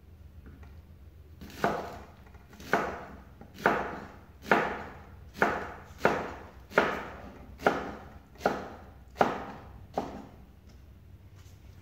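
Kitchen knife chopping green vegetables on a wooden cutting board: about eleven single, unhurried chops, each a sharp knock with a short fading ring, starting a second and a half in and stopping near the end.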